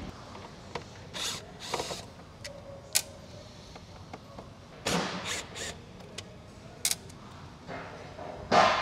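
Scattered clicks, knocks and short rattling bursts from tools and parts being handled inside a motorcycle Tour-Pak while its light bar is unscrewed, with a cordless drill-driver in use.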